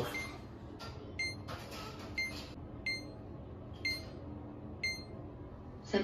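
SimpliSafe home alarm system beeping its exit-delay countdown while arming in away mode: short, identical high beeps, roughly one a second.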